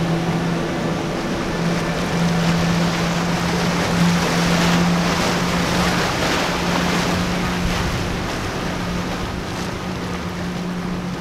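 Twin outboard engines of a Boston Whaler dual-console boat running at speed, a steady drone under the rush of the hull's spray and wake. The water rush swells in the middle and eases off toward the end as the boat pulls away.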